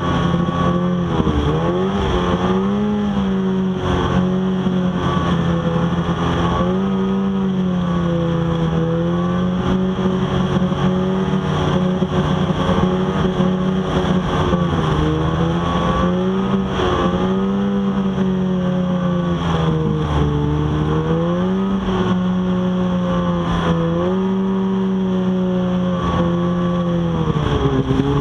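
Snowmobile engine running steadily at speed, heard from the rider's seat; its pitch dips and climbs back several times through the ride.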